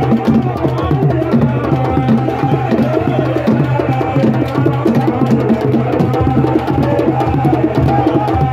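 Loud drum-led music with a fast, dense run of percussion strokes and a strong low end, playing without a break for the dancers.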